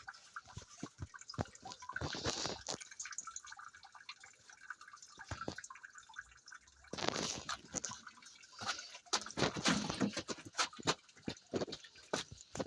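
Water splashing and dripping in a small garden waterfall, with many small irregular splashes and louder bursts about two seconds in and again around seven seconds in.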